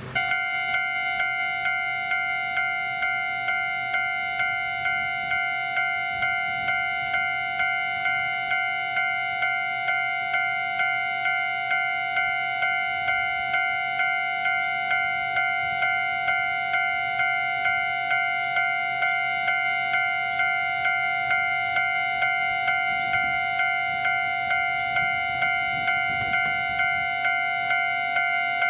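Japanese railway level-crossing warning alarm ringing: an electronic bell-like clang repeating about twice a second. It switches on suddenly at the start, the signal that a train is approaching and the crossing is closing.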